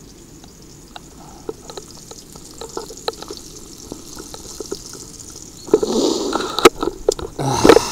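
Bacon rashers beginning to sizzle in a frying pan on a camping gas stove, with a faint hiss and scattered small pops of spitting fat. From about six seconds in, loud rustling and knocks drown it out.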